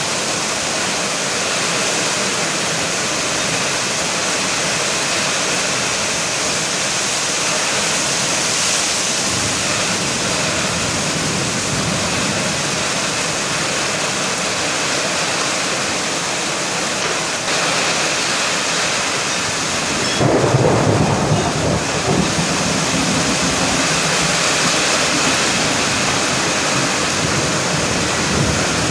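Heavy summer thunderstorm rain pouring down steadily, with a low rumble of thunder rolling in about twenty seconds in and fading over a few seconds.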